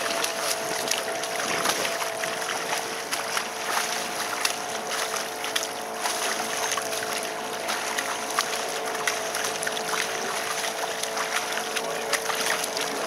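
Dghajsa water taxi under way: a steady two-note hum over a continuous rush of wind and water noise, with frequent small crackles.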